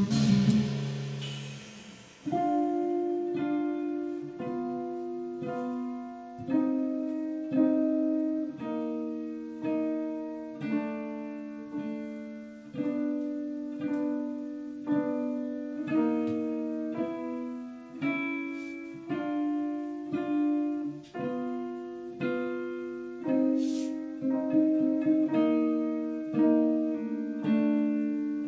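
Slow jazz ballad passage on archtop guitar and keyboard: sustained chords struck about once a second, each ringing out and fading before the next. A fuller, louder chord sounds in the first two seconds.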